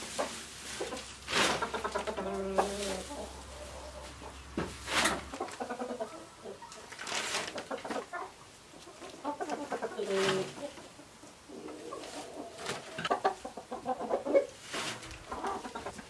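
Poultry calling in short repeated bursts, over the rustle of hay being pulled from a stall and tossed into a plastic wheelbarrow.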